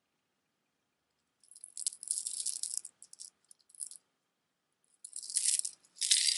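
Silver-tone chain-mesh necklace with plastic dangles and metal discs jingling and clinking as it is turned over in the hands, in two spells: one starting about a second and a half in, another from about five seconds in.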